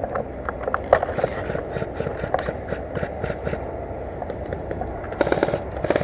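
Scattered clicks and rustling from movement, then near the end a short, rapid full-auto burst from an airsoft gun.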